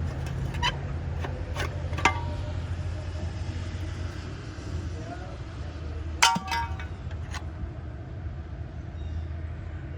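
Sharp metallic clinks and clanks, a few near the start and a cluster a little past the middle, over a steady low hum.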